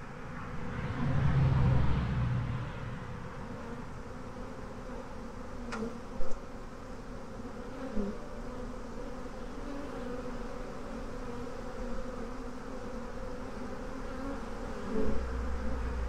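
Honey bee swarm buzzing around a hive box entrance: a steady hum of many wings as the bees fly in and land. A brief low rumble comes about a second in, and a sharp click about six seconds in.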